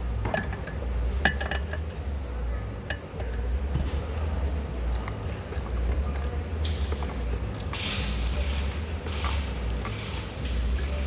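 Scattered clicks and clinks of hand tools and small metal parts being handled and fastened, over a steady low hum.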